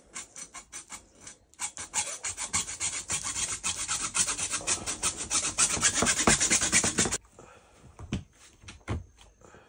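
Hacksaw cutting through white PEX tubing with quick back-and-forth rasping strokes, a few light starting strokes and then a fast steady run. It stops abruptly about seven seconds in, followed by a couple of single knocks.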